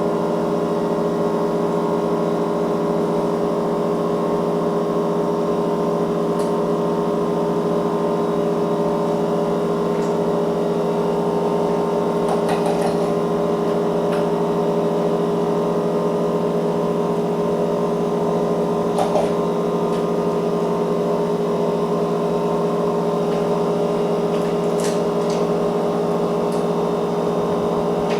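Steady machine hum made of several held tones, unchanging throughout, with a few light clicks and taps scattered through it.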